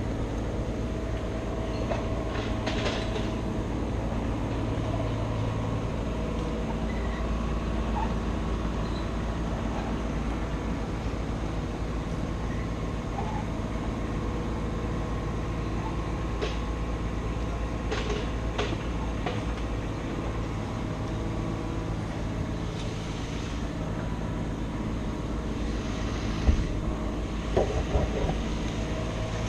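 A steady machine drone, the even running of a large engine, with a few faint clicks and a short cluster of knocks near the end.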